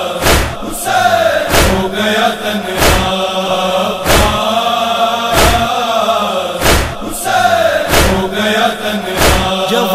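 A Shia noha lament chanted by a group of voices, with a sharp beat about every 1.3 seconds, most likely rhythmic chest-beating (matam).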